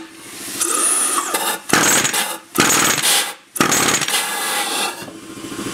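Homemade pneumatic forging machine cycling empty: its air-driven clamp and heading ram work in four rushes of air, each about a second long, starting about half a second in.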